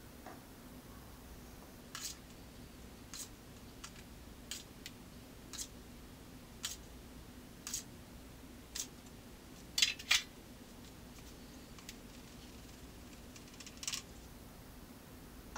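Metal scoop scraping and knocking inside a plastic bucket while wood ash is scooped out and tipped into a pot: short, sharp scrapes about once a second, with a louder pair about ten seconds in.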